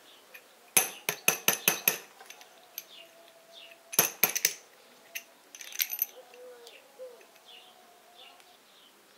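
Metal parts of a U-650 tractor's hydraulic distributor spool assembly clinking and clicking as they are handled and fitted together by hand. There is a quick run of about half a dozen sharp clicks about a second in, another short cluster about four seconds in, and a few lighter taps around six seconds.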